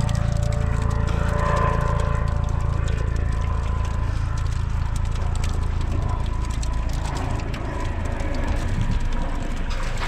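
A motor drones steadily with a low hum, slowly fading toward the end.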